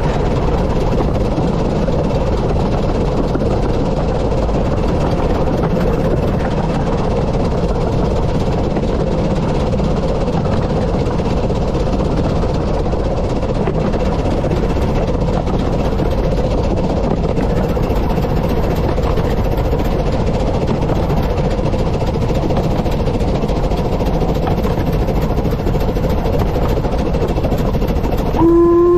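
Steady running rumble of a 15-inch gauge steam train moving along the track. Near the end the locomotive's steam whistle starts and holds one steady note.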